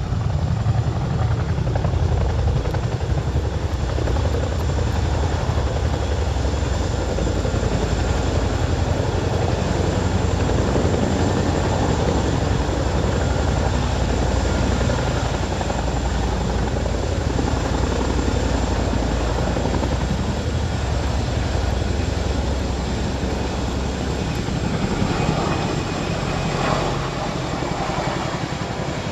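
RAF Chinook tandem-rotor helicopter lifting off and climbing away, its two rotors and turbine engines making a loud, steady beating din that eases slightly near the end.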